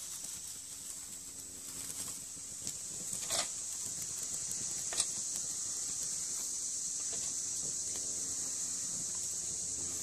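Small twig fire burning in a tin-can hobo stove, with a few sharp crackles and snaps over a steady high hiss.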